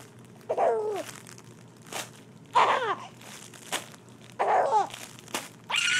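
A baby laughing in four short squeals that each fall in pitch, with brief crinkling crackles from a soft crinkle block being squeezed between them.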